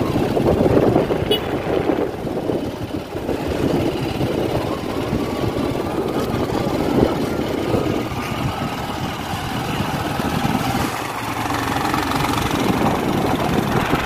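Motorcycle engine running steadily while riding along a road, mixed with rushing noise.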